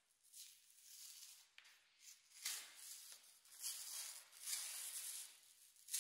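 Rustling and scraping of a sheet of artificial leather being handled and peeled away from a cut shape by hand, in several short, faint bursts.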